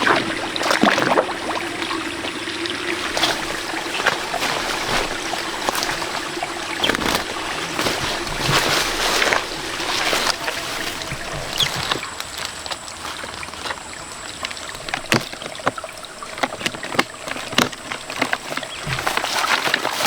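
Water splashing and trickling, with irregular clicks and knocks scattered through it.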